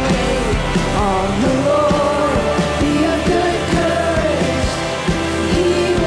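Live worship band music: a woman singing long held notes over strummed acoustic guitar, with steady drum beats and keyboards.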